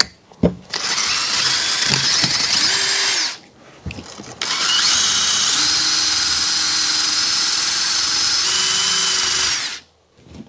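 DeWalt 20V cordless drill running in two bursts, the second spinning up with a rising whine, as its attachment scrubs the rusty cast-iron combustion chamber and valve seat of a small-block Chevy cylinder head clean.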